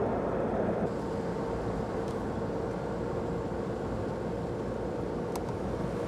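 Mazda NC Roadster on the move, its engine and road noise heard from inside the cabin as a steady drone with a faint steady hum tone; one short click about five seconds in.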